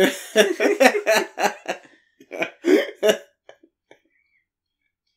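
Hearty laughter in rapid bursts, loudest in the first two seconds, with a few more near the middle, then dying away.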